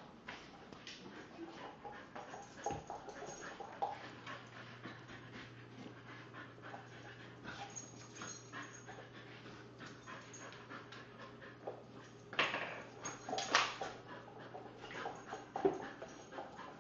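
Blue heeler (Australian cattle dog) whimpering and panting during play, with its claws tapping on a parquet floor. The loudest sounds are a few short bursts about three quarters of the way through.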